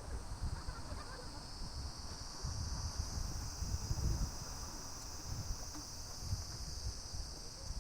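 Wind buffeting the microphone in uneven low gusts, with a steady high-pitched drone setting in just after the start and holding throughout.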